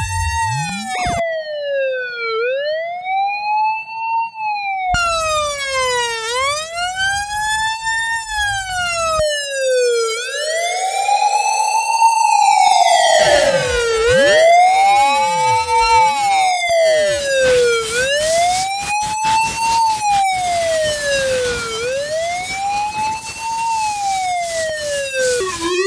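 Ambulance siren wailing, its pitch sweeping up and falling back about once every two seconds. In the middle several wails overlap out of step, and just before the end it changes to a steady tone.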